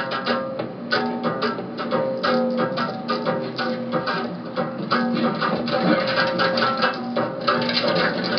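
Plucked-string music, guitar-like, playing a rhythmic tune of short picked notes over a held bass line.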